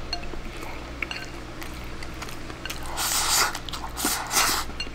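A person eating a bowl of egg and rice with chopsticks: a few light clicks of chopsticks on the ceramic bowl, then two noisy slurping bursts about three and four seconds in as the rice is shovelled from the bowl held to the mouth.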